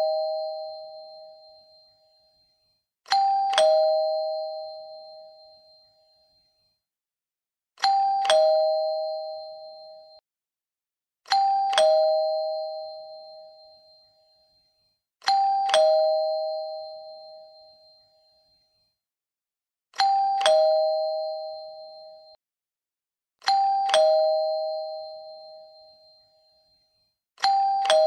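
Two-tone doorbell chime going ding-dong: a higher note, then a lower note about half a second later, each ringing out and fading over a couple of seconds. It sounds seven times, every three and a half to five seconds, with silence between, and the tail of another ding-dong fades at the start.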